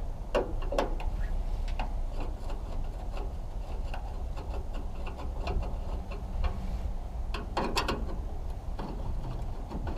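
Screwdriver working out the screws of a headlight cover: scattered light clicks and ticks of metal on metal over a steady low rumble, with a brief cluster of clicks near the end.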